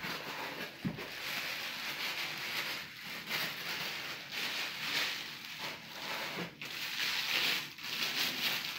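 Packaging being handled and unwrapped: a continuous crinkling, rustling noise that rises and falls.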